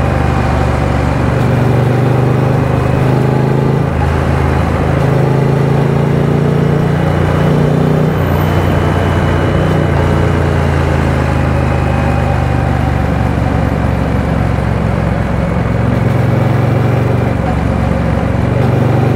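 Triumph Speed Twin 900's 900 cc parallel-twin engine running at highway speed. The engine note steps up and down in pitch several times with throttle and gear changes, over a steady rush of road and wind noise.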